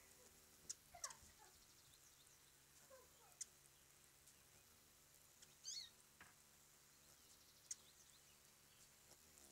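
Faint animal calls: a few short calls falling in pitch, one high falling call about six seconds in, and several sharp high ticks.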